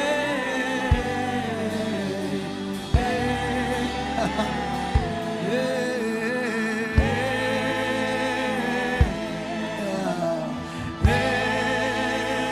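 Slow gospel worship music with sustained singing over held chords and a deep bass note, and a low drum hit about every two seconds.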